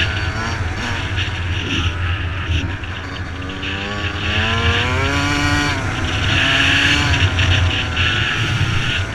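Yamaha YZ125 single-cylinder two-stroke engine running under way. Its pitch rises as it revs up about four seconds in, holds, and eases off a little near the end.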